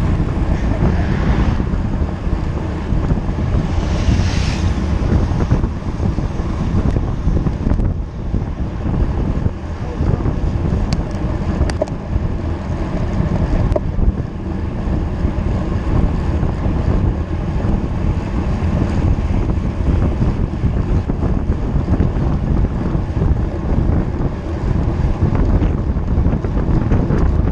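Wind buffeting a camera microphone at riding speed on a road bike: a loud, steady rushing roar with no letup.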